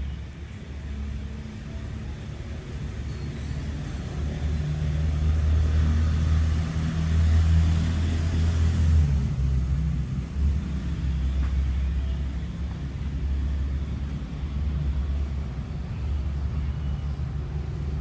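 Steady low engine rumble that swells louder for a few seconds in the middle, like a vehicle passing close by, then settles back to a steady hum.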